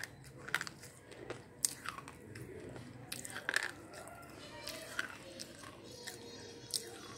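Slate pencil being bitten and crunched between the teeth, with irregular sharp crunches every half second or so among softer chewing.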